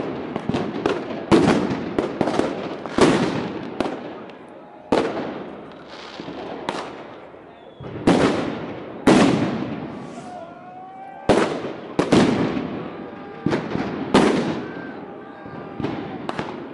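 Fireworks and firecrackers going off all around: an irregular series of sharp bangs, roughly one a second and sometimes several in quick succession, each trailing off in echo.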